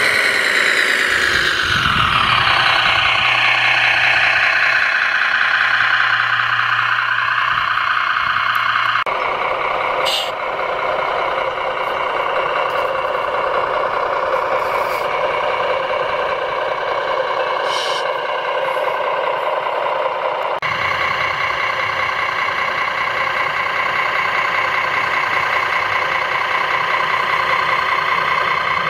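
Radio-controlled Liebherr LRT 1100-2.1 model crane running: a loud, steady mechanical whine of several tones that falls in pitch over the first few seconds, with a few short high sounds and abrupt changes about 9 and 21 seconds in.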